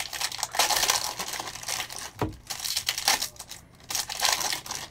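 Foil trading-card pack wrappers crinkling and tearing as they are handled and ripped open, with a sharp knock about two seconds in.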